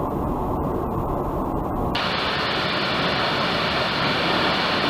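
Steady car road and engine noise heard inside the cabin through a dash cam microphone while driving, turning brighter and hissier about two seconds in.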